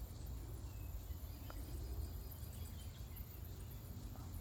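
Faint, scattered high-pitched squeaks and chitters from a bat colony roosting in a house roof before its evening emergence, over a low steady rumble.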